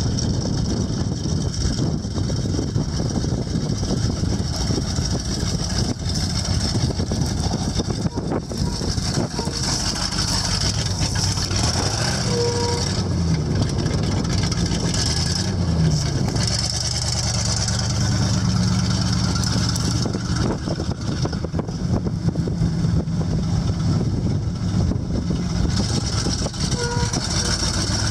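GMC 6500 grain truck's engine running. From about twelve seconds in, its note comes through clearly, with the pitch rising and falling as the engine speed changes.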